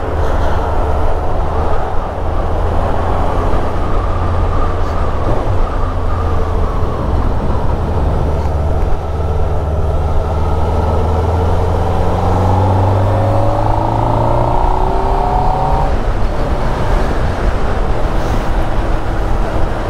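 Honda CBF600's inline-four engine running under way, with steady road and wind noise. From about eight seconds in, the engine note climbs steadily as the bike accelerates, then falls back abruptly about sixteen seconds in.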